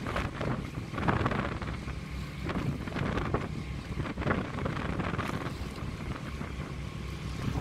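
A boat's engine rumbling steadily while under way, with wind gusting across the microphone and water washing past the hull.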